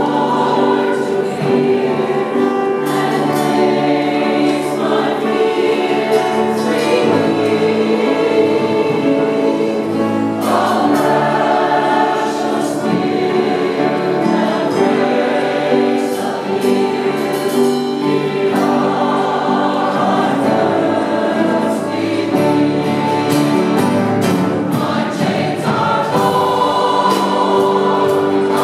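Mixed church choir singing a worship song, accompanied by strummed acoustic guitar and keyboard.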